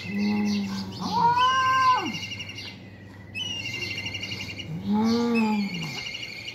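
Cats yowling at each other in a territorial standoff: a long low yowl, then a higher wailing call that rises and falls, and after a pause another low yowl that rises and falls.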